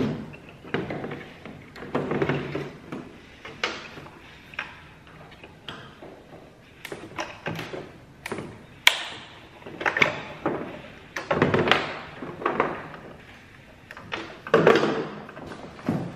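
Plastic tail light housing and parts being handled and set down on a pickup's bed: irregular clunks, taps and clicks, the sharpest click about nine seconds in.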